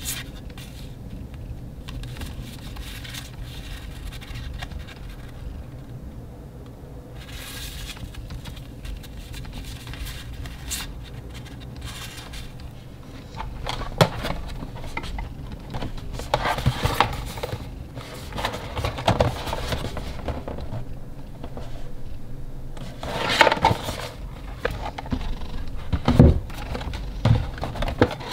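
Hands handling photocards and then a rigid pink cardboard lightstick box and its lid: soft card rustles at first, then from about halfway through louder scrapes, taps and rustles of cardboard. A low steady hum runs underneath.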